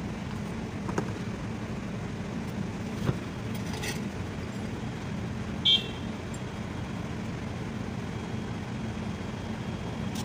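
Steady low mechanical hum, with a few light clicks and a short metallic clink about six seconds in.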